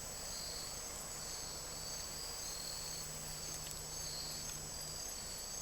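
A steady, high-pitched chorus of insects chirring, like crickets, with a faint low hum underneath that stops near the end.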